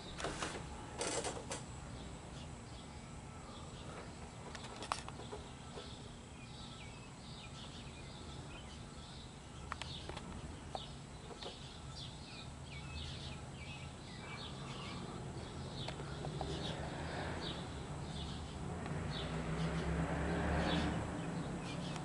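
Canarm 56-inch industrial ceiling fan spinning up on high in reverse: a low motor hum and the rush of air from the blades grow louder over the second half, with a few clicks near the start. Birds chirp throughout.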